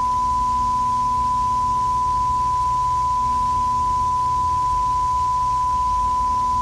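Steady 1 kHz line-up tone of a television channel that has closed down and gone off air, held unbroken at one pitch over a faint low hum.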